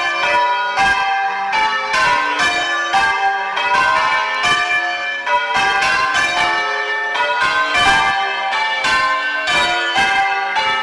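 A ring of six church bells, a clonky, old-fashioned 11cwt six in G, change ringing: a steady, unbroken run of strikes, each bell ringing on over the next.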